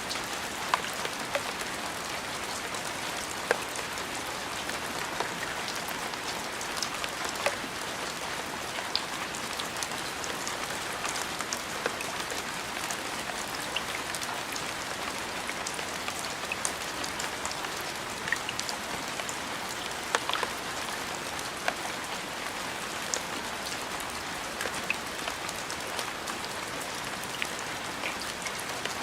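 Steady rain falling, an even hiss with many scattered sharp drops striking a surface.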